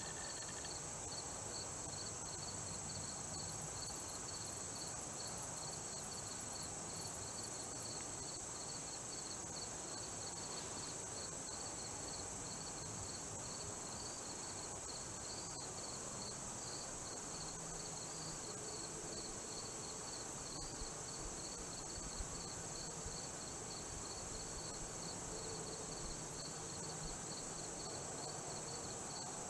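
Insects chorusing: a steady high-pitched drone with a thinner, evenly pulsing chirp just below it.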